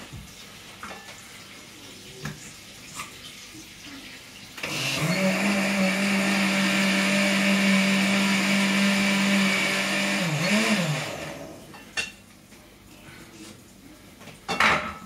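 Countertop blender switched on about five seconds in, its motor running at a steady pitch for about six seconds, then wobbling in pitch as it winds down and stops. A few short knocks from handling come before and after.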